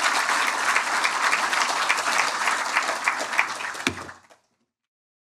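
Audience applauding, many hands clapping at once, with one low thump just before the applause cuts off abruptly about four seconds in.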